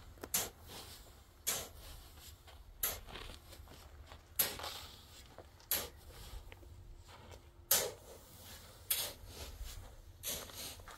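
A long-handled shovel chopping down into a pile of fine sand, a sharp crunching strike with a short gritty hiss about every one and a half seconds, eight times in a row.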